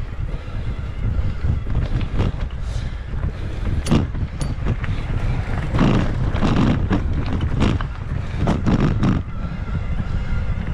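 Wind buffeting the microphone over a steady low rumble, broken by knocks and rattles about four seconds in and again in a cluster between six and nine seconds, as a mountain bike rides over rough ground.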